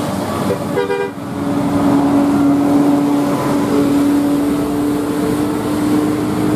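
Bus 'telolet' musical air horn: a quick burst of notes about a second in, then one long held note.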